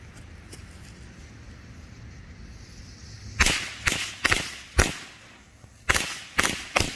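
Mad Dog firecrackers going off: seven sharp bangs, starting about three and a half seconds in, four about half a second apart, a pause of about a second, then three more.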